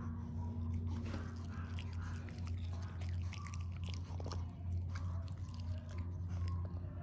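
A Maltese dog chewing and crunching pieces of vegetable fed by hand, in a run of quick, irregular chews, over a steady low hum.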